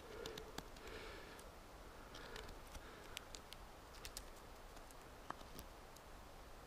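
Knife blade carving a stick of wood by hand: faint short scraping cuts in the first couple of seconds, then scattered small clicks of blade on wood.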